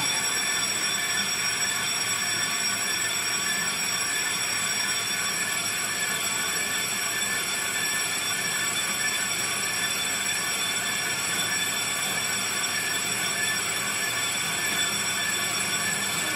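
Cast-iron brake disc being turned on a lathe, the cutting tool held against its spinning face. It makes a steady, high-pitched metallic squeal of several tones that holds without change.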